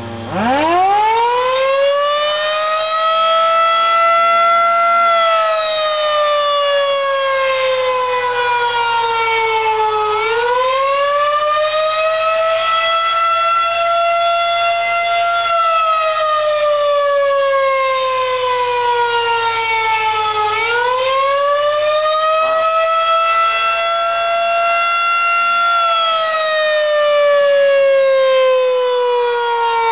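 Federal Signal 2001 DC outdoor tornado warning siren sounding its monthly test. It winds up from rest about a third of a second in, rising in pitch to full tone over about five seconds. Its pitch then slowly sags and quickly climbs back again, about every ten seconds.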